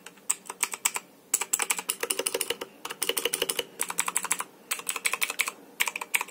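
Typing on a Motospeed CK61 60% mechanical keyboard with clicky blue switches: runs of rapid key clicks broken by a few short pauses.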